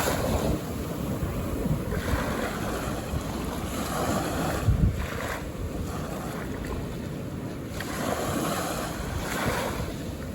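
Calm ocean waves washing onto a beach, the surf swelling and fading about every two to three seconds, with wind buffeting the microphone.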